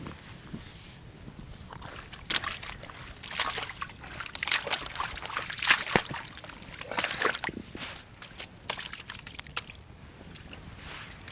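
Water sloshing and splashing in irregular bursts, loudest in the middle stretch.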